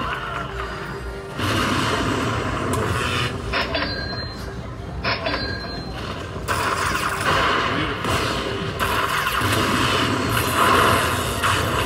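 Aristocrat Lightning Link 'Moon Race' slot machine playing its win-tally music as the bonus payout counts up, with two sharp hits about a second and a half apart near the middle.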